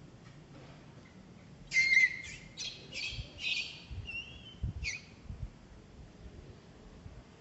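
Baby macaque screaming in a run of short, shrill squeals over about three seconds, loudest at the first cry. A few low thumps sound beneath the later squeals.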